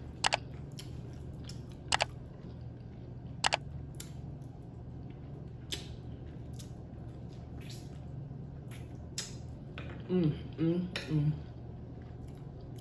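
Close-up eating sounds: chewing with sharp lip smacks, three loud ones in the first few seconds and fainter ones after. About ten seconds in comes a short wordless hum of enjoyment.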